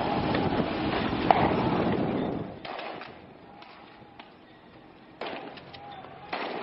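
Wind buffeting the camera microphone for the first two and a half seconds. Then it goes quieter, with a few sharp cracks of gunfire: one at the drop, two more near the end.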